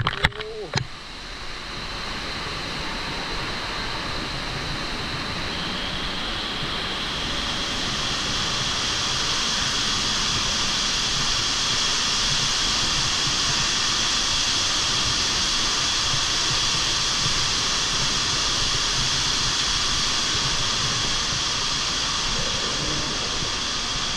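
Steady rush and hiss of artificial waterfalls and spray cascading beside the walkway, growing louder about seven seconds in. A few sharp knocks come at the very start.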